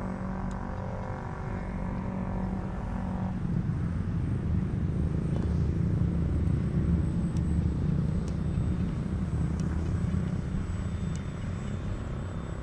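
An electric Ugly Stick RC model plane's motor and propeller hum at a steady pitch overhead, then cut out a little over three seconds in. After that a low rumble swells and fades.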